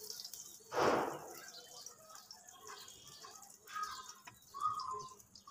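A metal spatula handling fried brinjal slices on a plate: one short scrape about a second in, then a few faint short sounds.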